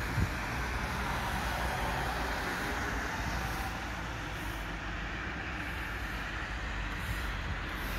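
Steady hum of distant city traffic, an even noise with a low rumble under it; a brief knock sounds just after the start.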